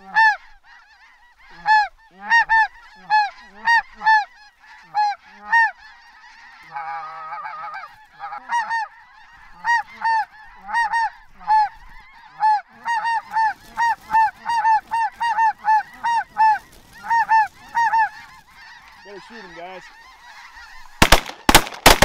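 Geese honking: a fast, steady run of short calls, each rising and falling in pitch. About a second before the end, a quick volley of shotgun blasts breaks in.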